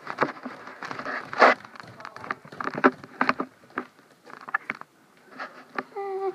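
Handling noise from a phone held against a furry plush toy: irregular rustling, scraping and bumping as the fur rubs and knocks on the microphone. A short pitched, voice-like sound comes near the end.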